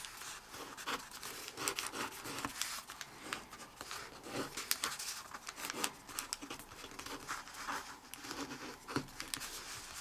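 Folded origami paper being flattened by hand on a tabletop: fingers rubbing and pressing the creases make a stream of short, irregular rustles and crinkles.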